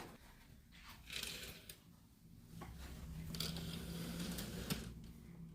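Faint clicks and rustling handling noises, with a low steady hum in the middle.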